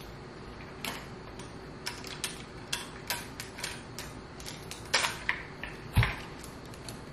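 Irregular light clicks and taps from party decorations being handled on a bar cart while a tassel garland is hung, with a louder knock about six seconds in.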